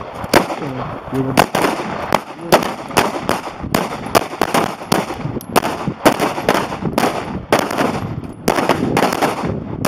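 Several handguns firing at once, single shots from different shooters falling at an irregular pace of about two a second.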